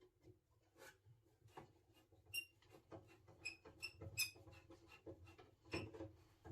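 Faint scattered clicks and light metallic clinks, a few ringing briefly, from small metal parts and hand tools being handled.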